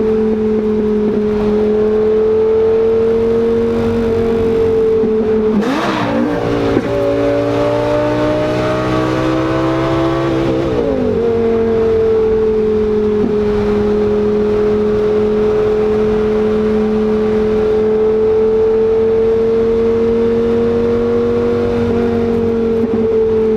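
Lamborghini Gallardo's V10 running through its new custom exhaust at a steady cruising drone. About six seconds in, the revs change and climb for about four seconds, then fall back to the steady drone.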